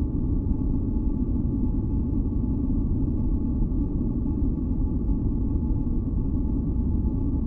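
Steady, deep masking noise from a sleep white-noise track, weighted to the low end like a rumble, with faint steady hums higher up. It does not change in level or character.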